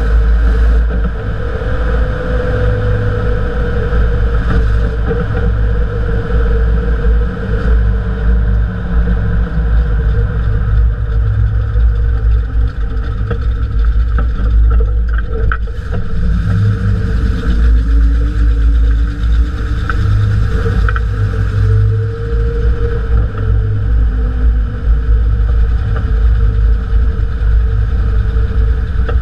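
Jeep CJ-5 driving on pavement, heard from under the rear suspension beside the wheel: a loud, steady low rumble of tyres and drivetrain with a droning hum that wavers in pitch now and then.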